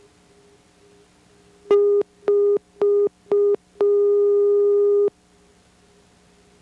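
Electronic beep tone: four short, evenly spaced beeps followed by one long beep of just over a second, all at the same mid pitch, over a faint steady hum.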